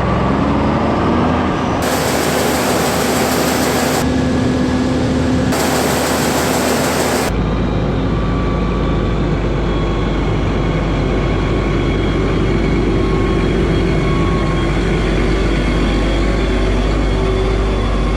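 Diesel engine of heavy farm machinery running steadily under load. The sound changes abruptly a few times in the first seven seconds, then runs on steadily.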